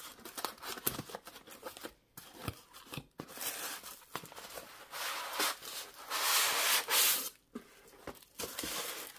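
Cardboard box flaps being torn and pulled open, then a foam-wrapped package drawn out of the box, with irregular scraping and rustling of cardboard and foam packaging. The longest rasp comes about five to seven seconds in.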